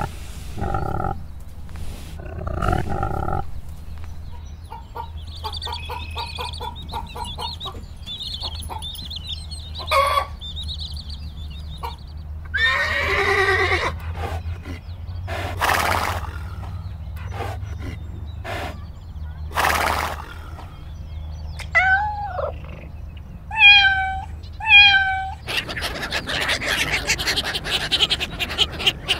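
A string of different farm animal calls one after another over a steady low hum. Near the end come three short pitched calls about a second apart, then a noisy stretch.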